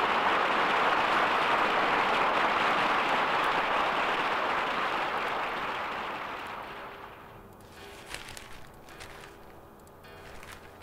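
A steady, even rushing noise fades away over the first six or seven seconds. Only faint scattered clicks remain after it.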